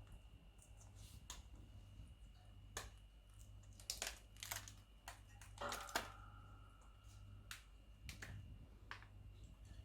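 Faint, scattered clicks and crunches of an Indian ringneck parrot's beak nibbling broccoli, louder and closer together about four to six seconds in, with a brief squeak just before six seconds. A steady faint hum lies underneath.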